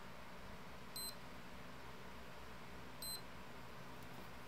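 Multimeter continuity tester beeping twice, short high-pitched beeps about two seconds apart. Each beep signals a closed electrical connection between the probes.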